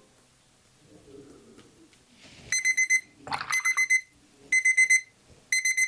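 Digital timer alarm going off, beeping in bursts of about four quick high beeps roughly once a second, starting about halfway through.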